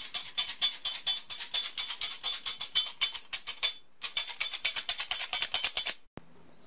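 A rusty metal saw vise shaken in the hand, its loose parts rattling and jingling fast, about eight to ten clicks a second. It stops briefly a little before halfway through, starts again, then stops with one last faint click.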